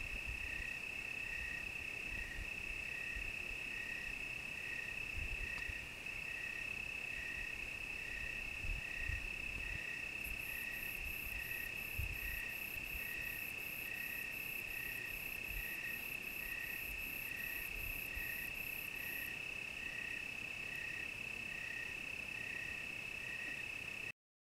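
Crickets chirping: one steady continuous high trill, with a second cricket's chirp repeating about one and a half times a second underneath it. From about ten seconds in to about nineteen, a rapid, very high-pitched pulsing from another insect joins, and the sound cuts off just before the end.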